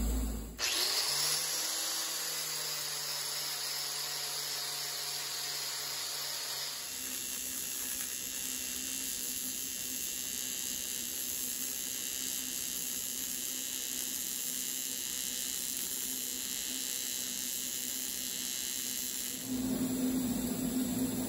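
TIG welding arc hissing steadily over a low hum from the bead roller's slow, gear-reduced DC motor turning the tube in a lathe chuck. The pitch of the hum shifts about seven seconds in and again near the end.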